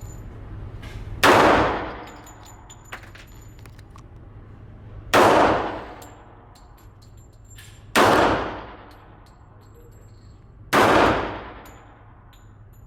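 Four single handgun shots, the first a little over a second in and the rest about three to four seconds apart, each ringing off with reverberation. Faint small ticks sound between the shots.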